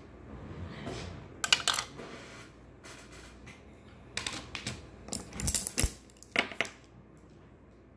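Clicks and clatters of small hard makeup items being handled and set down on a tabletop, in four short clusters about one and a half, four, five and a half and six and a half seconds in.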